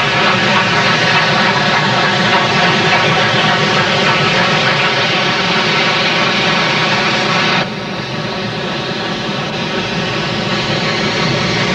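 Articulated steam locomotive working hard, a continuous rushing exhaust noise with no separate beats. It drops abruptly, quieter and duller, about eight seconds in.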